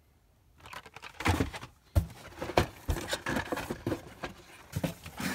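Blister-carded die-cast toy cars being handled: plastic packaging rustling and clacking, with several sharp knocks, starting about a second in.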